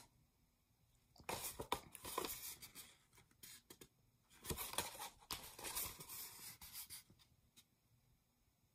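Stiff paper rustling and crinkling as a wax-sealed sheet is handled and folded. It comes in two bursts of a couple of seconds each, with a few light clicks between them.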